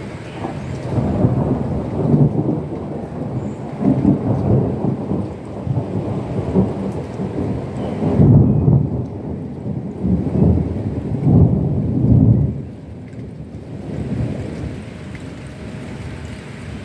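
Thunder rolling in several rumbling swells, the last about eleven seconds in, then dying away, over steady rain.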